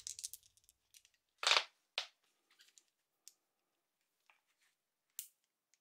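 Toy Single Action Army revolver being loaded: faint clicks and rattles as toy shells go through the loading gate and the cylinder is turned, with one louder, brief scraping rattle about one and a half seconds in and another click just after.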